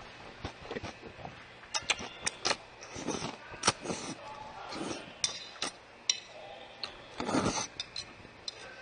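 Someone eating udon: noodles and broth slurped in several short pulls, with chopsticks and a spoon clicking and clinking against a bowl.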